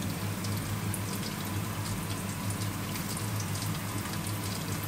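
Curry sauce simmering in a cast-iron skillet while a silicone spatula stirs it: a steady sizzle with many small scattered pops, over a low steady hum.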